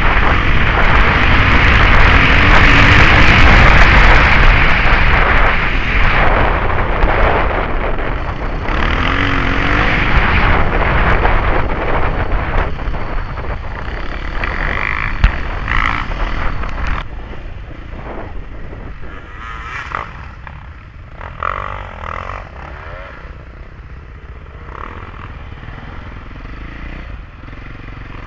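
KTM trail bike's engine running as the bike is ridden along a dirt track, heard from the rider's helmet. It is loudest in the first several seconds and grows much quieter in the second half.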